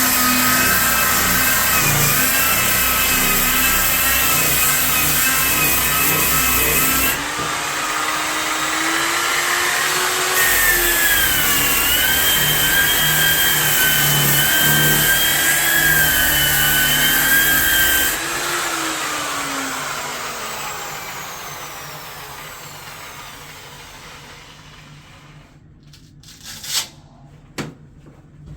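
Electric sander, a power tool converted with a backer pad and 80-grit paper, running with a wavering whine as it grinds the old coating off a fiberglass tub insert. It drops off about 7 seconds in, comes back up a few seconds later, then cuts off and winds down, and a few sharp knocks follow near the end.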